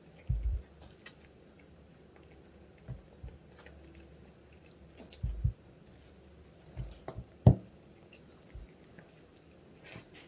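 Eating a bulgogi sandwich by hand: soft bites and chewing with scattered small crunches, and a few short dull thumps, the loudest one about two-thirds of the way through.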